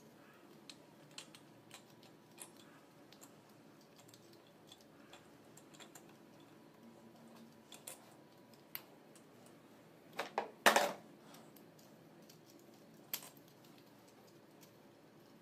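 Scattered small metal clicks and taps as nuts and small parts are handled on an alternator's aluminium rear housing, with a brief cluster of louder clicks about ten seconds in.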